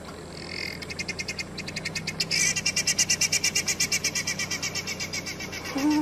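A bird's rapid chattering call: a fast run of sharp high notes, about nine a second, that swells and then fades. A short low voiced sound comes near the end.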